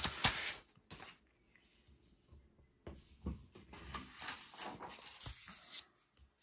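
Sheets of printed paper rustling as kit instruction leaflets are handled and turned over: a loud burst at the start, a short one about a second in, and a longer uneven stretch from about three seconds until near the end.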